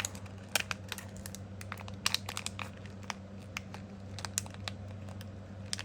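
Small fidget-slider parts being taken out and handled: irregular light clicks and crinkles, a few sharper ticks, over a steady low hum.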